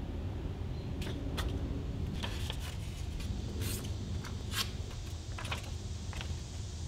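A sheet of paper being handled and folded by hand: scattered crisp rustles and creases over a steady low hum.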